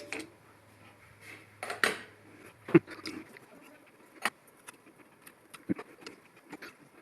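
Scattered metal clinks and taps from tools and metal parts being handled, one louder knock about three seconds in. A faint low hum stops at about the same time.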